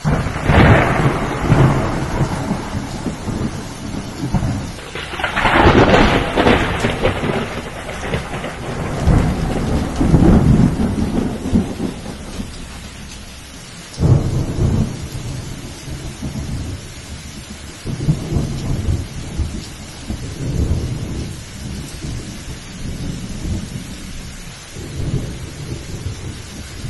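Rain falling steadily through a thunderstorm, with thunder rumbling again and again: the loudest rolls come about five to seven and ten seconds in, a sharper crack about fourteen seconds in, then softer, lower rumbles.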